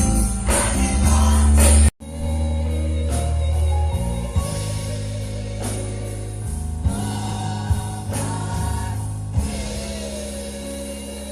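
Gospel-style music with choir singing, cut off abruptly about two seconds in and followed at once by a different piece of music with a steady bass line and a long held note.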